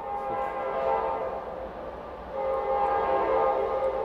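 Train horn blowing as a train comes through, a chord of several steady tones over a low rumble. It dips about two seconds in and swells again.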